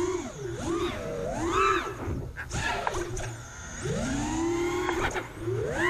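Racing quadcopter's Emax RS2205S 2300kV brushless motors and HQ 5040 tri-blade props whining in flight. The pitch rises and falls repeatedly with throttle punches and cuts, holding high for a stretch in the second half.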